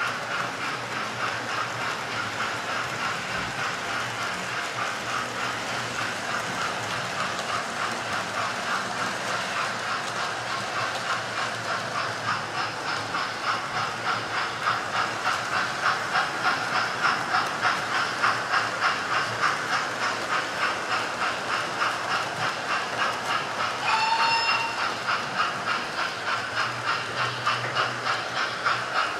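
Model railway trains running round the layout, making a steady, fast, evenly rhythmic clatter that carries on throughout. Near the end a short, high, pitched whistle sounds once.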